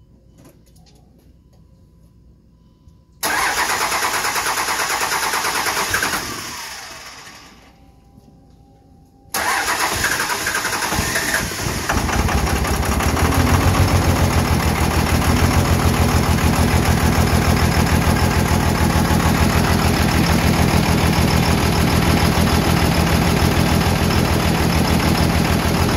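24-valve Cummins 5.9 L inline-six diesel being cranked on its first start after a fire-ringed head gasket job. The first try runs about three seconds and winds down without staying running. It is cranked again about nine seconds in, catches a few seconds later and settles into a steady idle.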